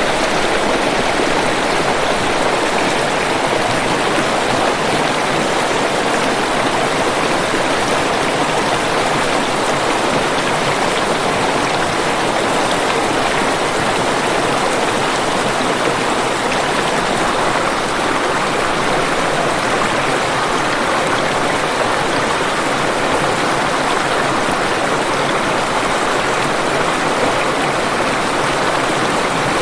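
Waterfall rushing, a steady, unbroken wash of falling water with no separate splashes or changes.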